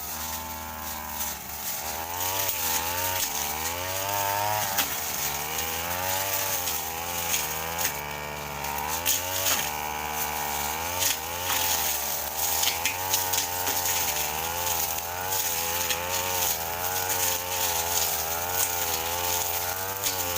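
Petrol brush cutter running under load, its engine speed rising and falling again and again as it cuts through shrubs and alang-alang grass, with frequent sharp ticks of the blade striking stems.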